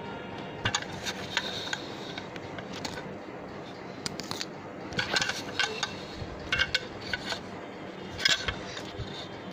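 Toy kitchen dishes and utensils clinking and knocking as they are handled, in short scattered clusters of sharp clicks, the busiest about five and eight seconds in.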